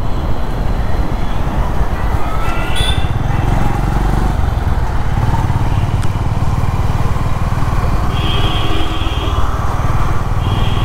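Honda CB350's single-cylinder engine running steadily under the rider while cruising in traffic. A brief high steady tone sounds about eight seconds in.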